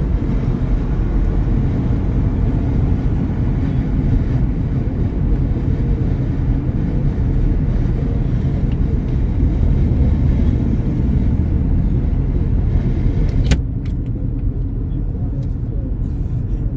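Steady road and engine noise inside a car cruising at freeway speed, a low rumble with a hiss on top. About three-quarters of the way through there is a sharp click, after which the noise turns quieter and duller.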